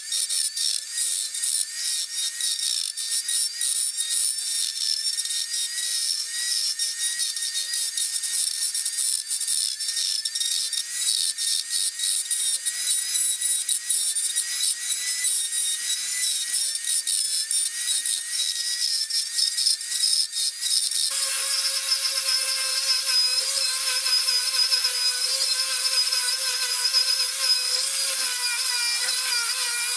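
Small high-speed power tool whining as it cuts into wood, with a rasping scrape. About 21 seconds in, the whine shifts to a lower, steadier tone and the scraping stops.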